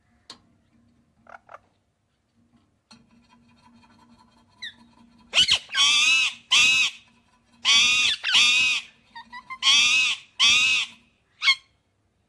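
A parrot giving loud calls in pairs: three pairs about two seconds apart in the second half, after a few faint short chirps, then one short call near the end.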